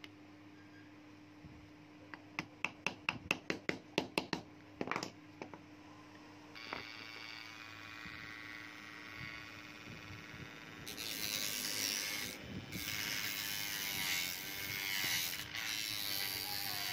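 A run of about a dozen sharp mechanical clicks, roughly three a second, then a small electric motor starts running with a steady whine. A few seconds later the motor gets louder and rougher and its pitch wavers.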